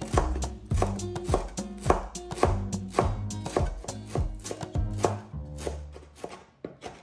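Chef's knife chopping fresh parsley on a bamboo cutting board: a quick run of sharp knocks, about three to four a second, thinning out near the end, over background music.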